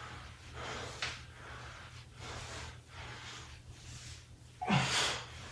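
A man breathing hard through bodyweight squats, a short, airy exhale with each rep, and a louder, partly voiced exhale near the end.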